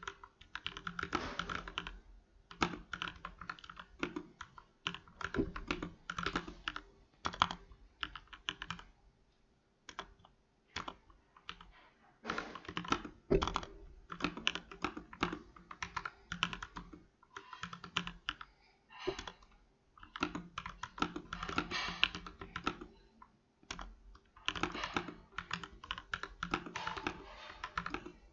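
Typing on a budget custom mechanical keyboard: rapid runs of key clacks in bursts, with a couple of short pauses.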